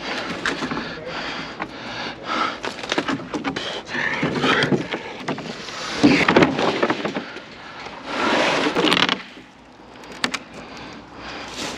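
An old fence being hacked apart: irregular sharp knocks mixed with longer stretches of cracking and scraping, the loudest about halfway through and again about three-quarters of the way through.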